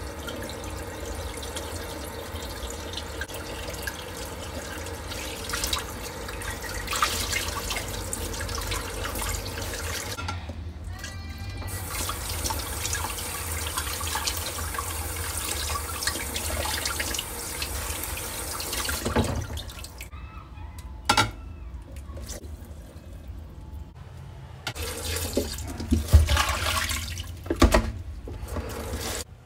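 Tap water running steadily into a stainless steel sink while whole pompano fish are rinsed by hand under it. About two-thirds through, the steady flow stops, leaving wet handling sounds, splashes and a few knocks as pork liver is washed in a plastic tub.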